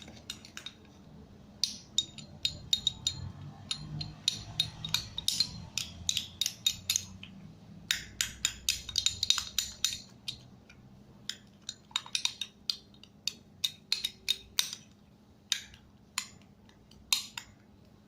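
Small spoon clicking and scraping against a bowl in quick, irregular runs of taps while glue slime is stirred, with short pauses between the runs.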